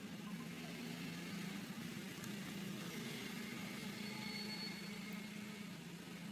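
Steady low hum of an engine running in the background, with faint high thin tones near the middle.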